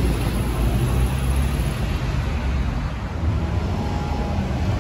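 Road traffic with car engines running: a steady low rumble of passing cars.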